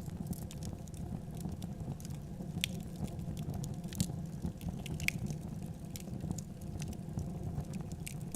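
Wood fire crackling: irregular sharp pops and snaps over a steady low rumble, with a few louder pops about two and a half, four and five seconds in.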